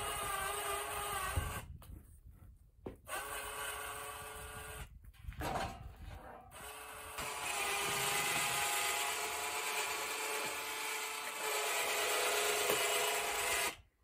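Electric winch motor running with a steady whine as it drags a log up steel ramps onto a sawmill bed. It stops and starts a few times.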